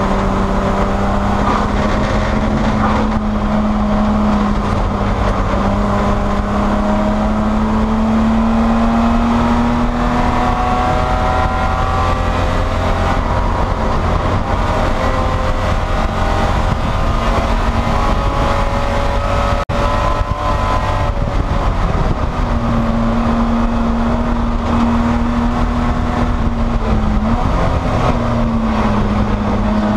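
A Spec E30 BMW race car's inline-six engine under racing load, heard from inside the stripped cabin with road and wind noise. The engine note climbs steadily and then drops away. A brief cut about two-thirds of the way through is followed by another climb and a dip near the end, as the car accelerates, shifts and lifts for corners.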